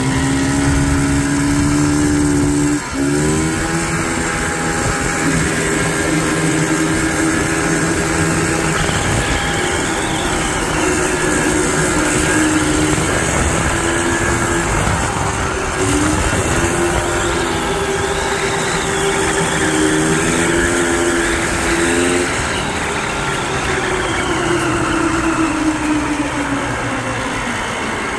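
1986 Polaris Scrambler 250 three-wheeler's two-stroke engine running while under way, with wind rush. The engine note dips briefly about three seconds in and falls away over the last few seconds as it slows.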